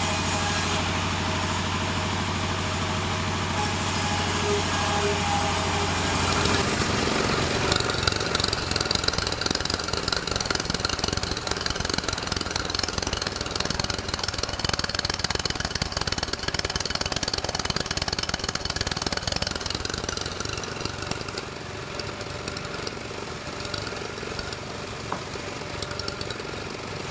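Sawmill machinery: a steady engine hum, then about six seconds in a saw starts cutting through timber, a rough, gritty sawing that goes on for most of the rest.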